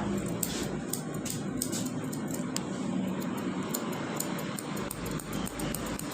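Barber's scissors snipping hair, a quick, irregular run of sharp metallic snips, a few each second.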